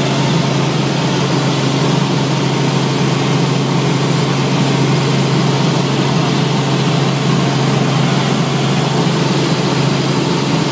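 Helicopter engine and rotors heard from inside the cabin in flight: a loud, steady drone with a strong low hum over a broad rushing noise.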